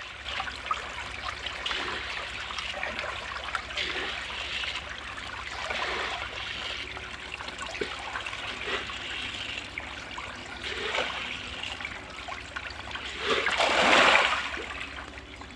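A crowd of fish splashing and churning at the water surface as they feed, with a much louder burst of splashing near the end.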